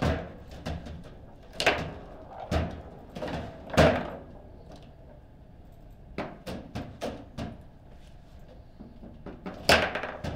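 Table football in play: sharp knocks of the ball being struck by the figures and hitting the table, coming irregularly, loudest about four seconds in and again near the end, with a run of lighter clicks a little past six seconds.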